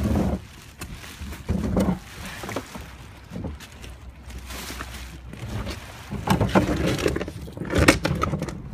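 Irregular rustling and knocking from a handheld phone being moved about while its holder walks, over a steady low rumble of wind on the microphone; the loudest knocks come near the start, about two seconds in, and towards the end.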